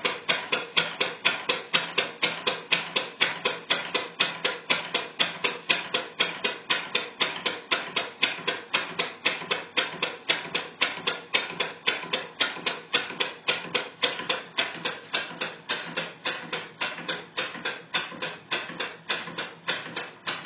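Single-cylinder Briggs & Stratton lawnmower engine converted into a steam engine and run on compressed air, chuffing steadily with a sharp puff of exhaust air on each stroke. The puffs come about three times a second and slow slightly near the end.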